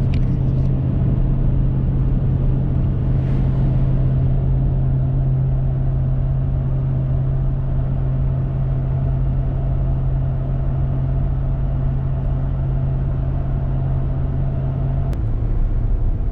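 Diesel pickup truck engine running steadily under load while towing a trailer, with road noise. Its steady hum drops slightly in pitch about fifteen seconds in.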